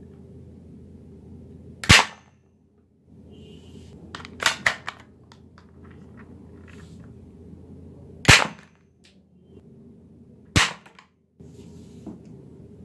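Plastic toy pump-action shotgun firing: three sharp pops, about two, eight and ten and a half seconds in, with a quick run of smaller clicks between the first and second.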